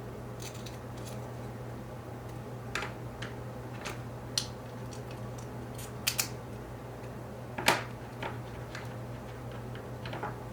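Scattered light clicks and taps of small plastic kit parts and tools being handled during assembly of an RC car's rear suspension, about a dozen, irregular, with one louder click about three quarters of the way through. A steady low hum runs underneath.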